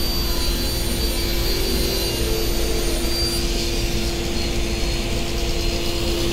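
Felder table saw fitted with a 250 mm, 60-tooth Woodwork crosscut blade, ripping a larch board lengthwise: a steady, even whine over a constant hum. The blade cuts through easily, although 60 teeth is a lot for ripping.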